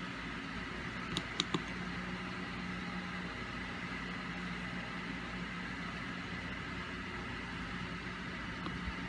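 Steady hum of a running machine with a low, level tone, with three light clicks a little over a second in.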